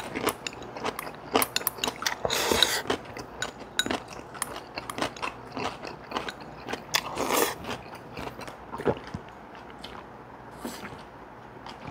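People eating at the table: crunching and chewing of Korean side dishes such as kimchi and pickles, with many small clicks and a couple of louder crunchy bites.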